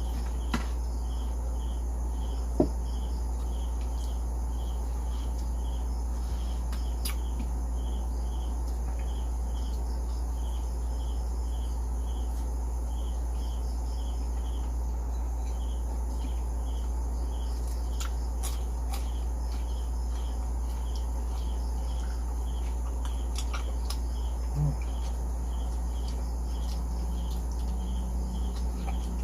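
Crickets chirping in an even rhythm, a little under two chirps a second, over a steady low hum. A few sharp clicks stand out, the loudest about two and a half seconds in.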